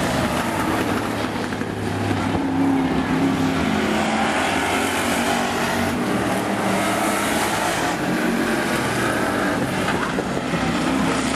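Engines of a pack of demo cars running together at speed around an oval track, a steady mixed engine sound that swells and eases slightly as the cars go round.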